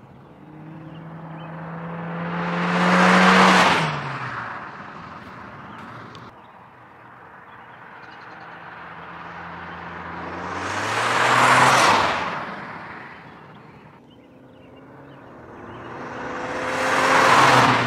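Stock-exhaust 2021 Honda Civic Sport hatchback driving past three times, its 1.5-litre turbocharged four-cylinder rising to a peak as it nears and the engine note dropping in pitch as it goes by. The third pass peaks near the end.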